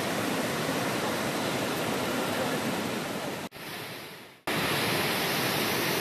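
Steady rush of a waterfall cascade, water pouring over boulders. About three and a half seconds in it drops for a second to a fainter, fading hiss, then comes back at full strength.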